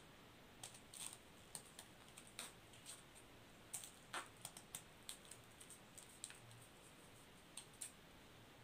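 Scissors snipping through folded paper: faint, short, irregular snips, about two a second, with a pause near the end.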